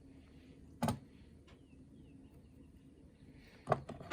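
Small metal jewelry tools and brass wire being handled: a sharp click about a second in, then a few clicks near the end, the last one the loudest.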